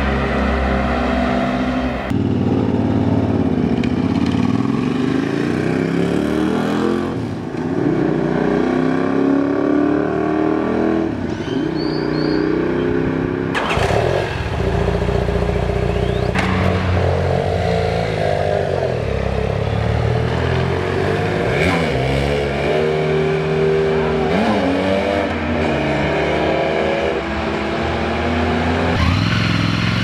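Large-displacement motorcycle engines idling, revving and pulling away, their pitch rising and falling with the throttle, in a run of short clips with abrupt cuts between them.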